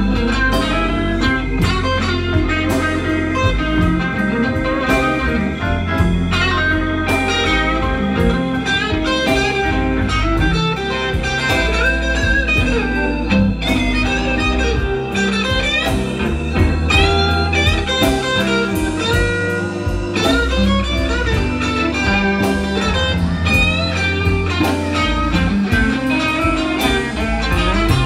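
Live blues band playing an instrumental passage with no singing: electric guitar lines over bass and drums.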